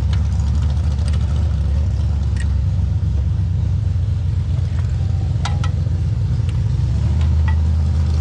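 An engine running steadily at idle with a low rumble, with a couple of faint clicks about five and a half seconds in.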